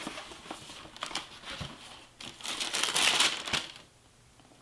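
Cardboard shoebox being handled and opened, with a few light knocks and paper crinkling and rustling inside it, loudest a little past the middle and stopping shortly before the end.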